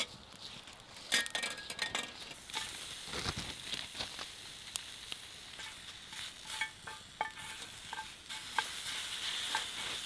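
Raw shrimp sizzling in a small frying pan over a wood campfire, with sharp crackles and snaps from the burning wood. The steady sizzle sets in a couple of seconds in, after a few clicks and clinks of the pan being handled.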